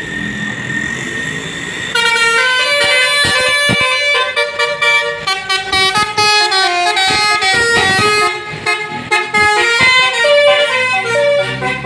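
A vehicle's multi-tone 'basuri' horn, a telolet-style melody horn module, playing a quick tune in stepped notes over street traffic, starting about two seconds in.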